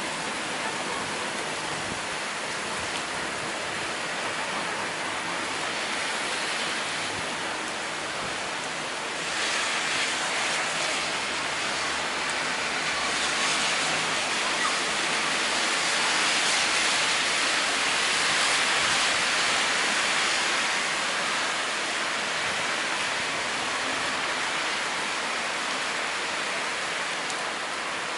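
Heavy rain pouring down on a paved street during a thunderstorm, a steady hiss. It swells about a third of the way in, is heaviest around the middle, then eases slightly.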